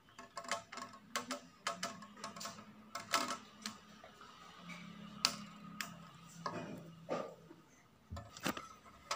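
Hard plastic robot-kit parts clicking and snapping as they are twisted off their moulded frame and handled: irregular sharp clicks, one or two a second.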